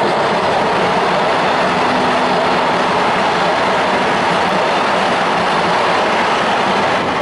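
EF65 electric locomotive pulling away at low speed and passing close by: a loud, steady running noise of its motors and wheels on the rails.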